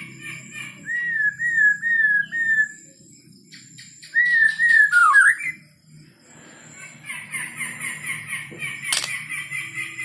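White-rumped shama singing: loud, clear slurred whistles, a run of three about a second in and another phrase near the middle, then rapid repeated chattering notes over the last few seconds. A single sharp click sounds near the end.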